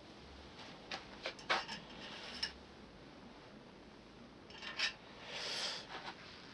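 Small metal pen-turning bushes clicking and sliding onto a steel lathe mandrel: a few light clicks, then a short scraping rub.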